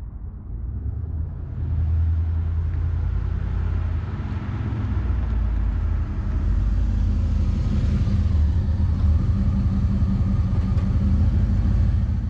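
1986 Chevrolet Camaro IROC-Z's 305 cubic-inch Tuned-Port Injection V8 running as the car drives up, getting louder over the first two seconds and then holding steady.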